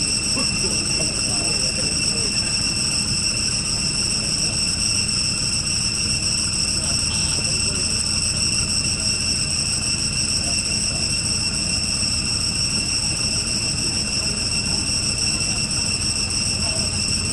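Steady, unbroken high-pitched insect buzzing over a low rumble.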